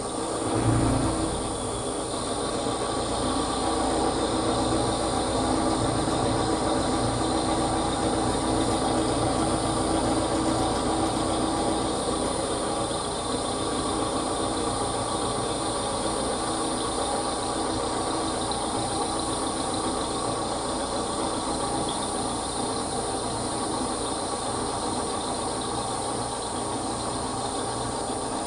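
Milling machine running, its end mill cutting a slot in a workpiece held in the vise: a steady machining drone with a swell about a second in.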